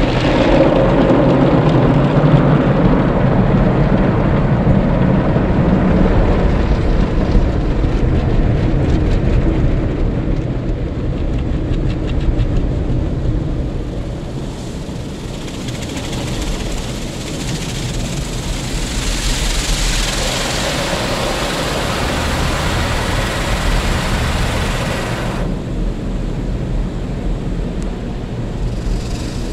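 Automatic car wash heard from inside the car: a heavy low rumbling churn of brushes and water working over the body and windshield. About halfway through, a loud hiss of water spray joins in, then cuts off suddenly a few seconds before the end.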